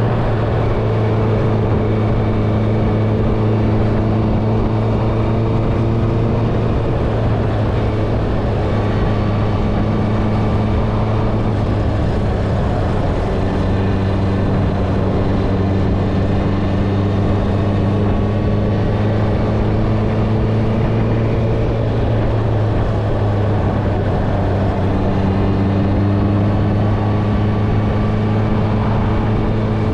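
Honda CBR650R inline-four with an Akrapovič exhaust, ridden at a fairly steady cruise. The engine note dips and rises slightly a couple of times, with wind and road noise underneath.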